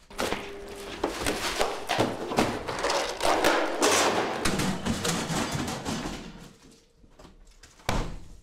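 Banging and clattering in a room for several seconds, then a single sharp slam near the end.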